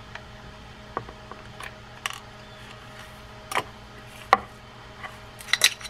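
Scattered light clicks and taps of a small screwdriver and a compact fishing reel's frame and trim parts being handled on a workbench. The sharpest clicks come a little past halfway, and a quick cluster of clicks comes near the end, over a faint steady hum.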